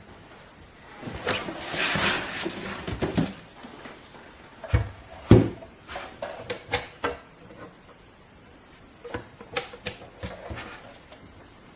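Handling noise: a rustle, then two heavy knocks and a scatter of sharp clicks and clunks.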